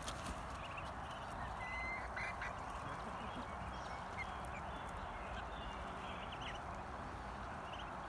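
Steady droning chorus of periodical cicadas, with scattered short high peeps from Muscovy ducklings and ducks.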